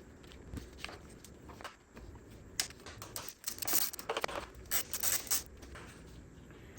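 Hands handling small parts and hardware: a series of light clicks and rustling, scraping noises, busiest from about two and a half to five and a half seconds in.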